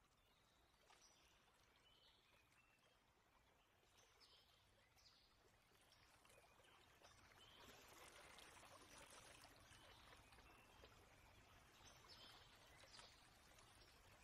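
Near silence: a faint steady hiss with occasional faint, short, high chirps.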